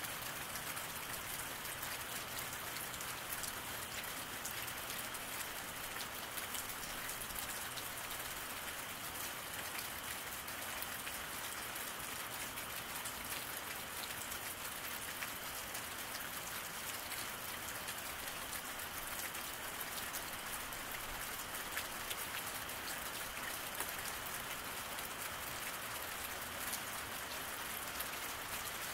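Steady rain falling on a wet road, an even hiss of rain with many small drop ticks throughout.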